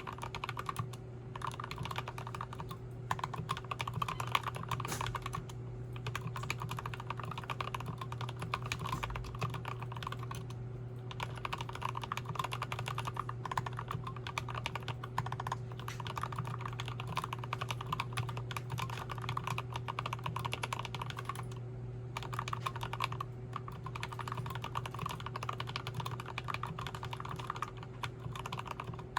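Steady, fast typing on a Tokyo60 mechanical keyboard with Krytox 205g0-lubed Turquoise Tealios linear switches; the space bar, enter and left shift are Gateron silent brown switches. The typing stops for a moment several times. A steady low hum runs underneath.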